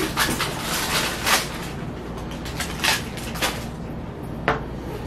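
Crunchy cookie being bitten and chewed close to the microphone: quick crunches for the first second and a half, then a few separate crunches.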